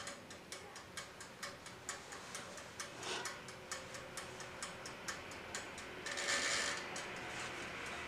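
Clockwork timer of a small countertop toaster oven ticking rapidly and evenly, about four ticks a second, just after its knob has been turned to set the bake time. A brief rustling scrape a little past six seconds in.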